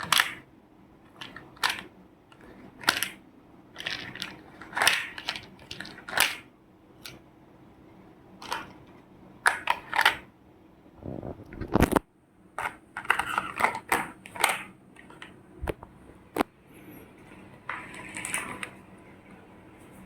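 Plastic toys being handled and moved: a string of irregular small clicks and knocks, with a few short scraping or rattling stretches.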